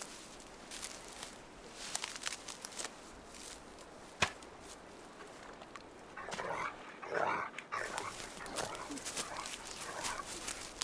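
Dry reed stems rustling and crackling as someone moves through them, with one sharp snap about four seconds in. From about six seconds a dog whines.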